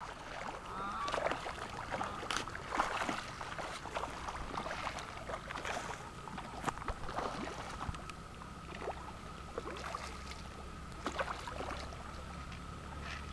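Fish splashing at the surface of a pond as they take feed: irregular slaps and splashes, several a second at times. A steady faint high tone runs behind them.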